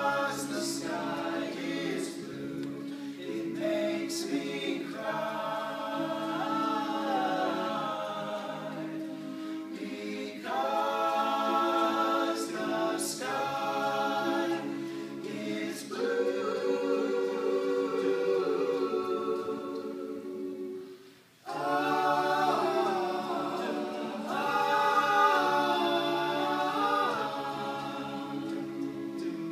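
A cappella vocal group singing in close harmony, holding long chords phrase after phrase, with a brief break about 21 seconds in.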